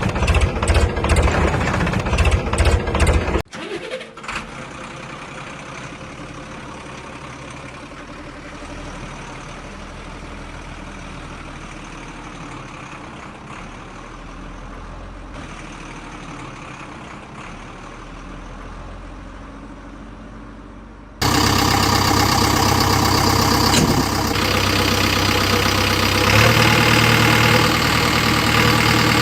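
Heavy diesel engines running, heard across several cut-together clips: a loud rapid knocking for the first few seconds, then a quieter steady idle, then a loud steady run from about two-thirds of the way in that steps up in level near the end.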